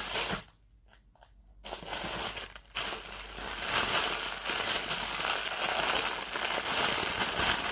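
Uneven crinkling and rustling handling noise close to the phone's microphone. It starts after a short lull about a second and a half in.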